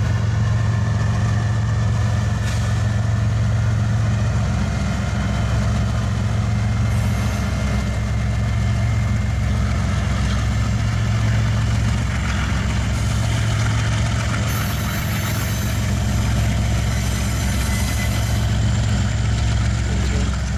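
Freight diesel locomotive engines running with a steady deep rumble.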